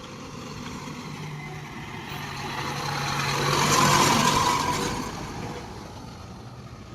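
Heavy diesel machinery engine running, swelling louder to a peak about four seconds in and then easing off again.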